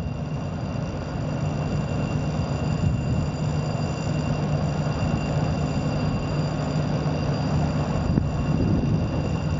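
Steady engine drone with a low hum and a faint high whine held throughout.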